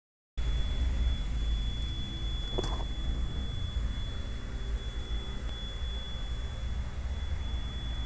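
Ashok Leyland Dost CNG engine idling steadily, heard close up in the open engine bay. A thin high whine runs over the low engine sound, and there is a single short tick about two and a half seconds in.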